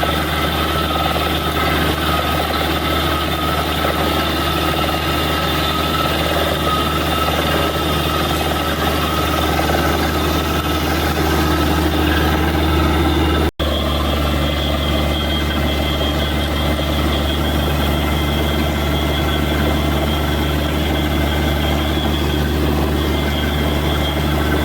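Borewell drilling rig's heavy diesel engine and compressor running steadily under load, a deep steady hum with a loud hiss over it. The machine sound changes slightly in tone about halfway through.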